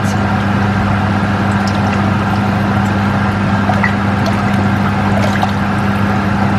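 Thin gravy stirred with a wooden spoon in a stainless steel saucepan as it heats toward the boil: soft liquid sloshing with faint scattered ticks, over a steady low hum.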